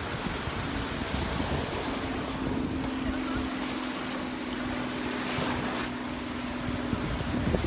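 Gulf surf washing onto the beach, with wind buffeting the microphone. A steady low drone from a distant motor runs under it through most of the stretch.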